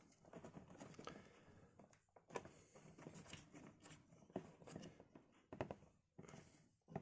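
Faint, irregular clicks, taps and rustling from computer parts and their packaging being handled during assembly.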